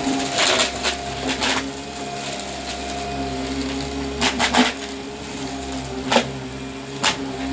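Upright vacuum cleaner running with a steady motor hum, with crunchy debris crackling as the brushroll picks it up in several short bursts.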